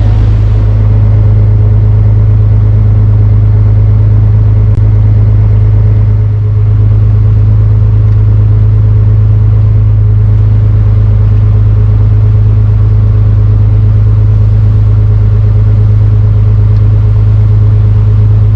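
A Dutch barge's inboard engine running steadily under way, a loud, constant low drone.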